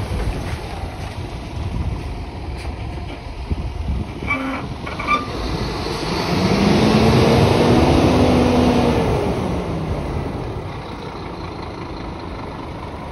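Scania P230 box truck's diesel engine running as the truck drives slowly around, its note rising in pitch and getting louder from about six seconds in, then falling away after about nine seconds. A few short squeaks sound about four to five seconds in.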